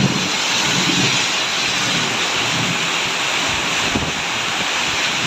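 Heavy rain pouring down in a strong windstorm, a steady loud hiss with gusts buffeting the microphone.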